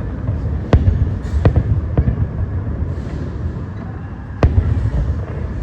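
Aerial fireworks display: several sharp bangs of shells bursting, spaced irregularly, over a steady low rumble of the show.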